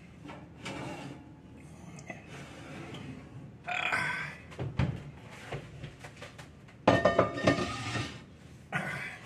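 Oven and metal skillet clattering as the skillet is pulled out of the oven and handled, with scattered knocks and scrapes and a loud run of metal clatter about seven seconds in.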